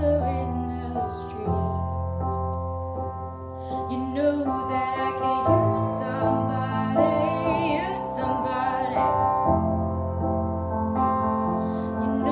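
A young woman singing solo over piano accompaniment, with vibrato on her held notes. The accompaniment's chords change every second or two.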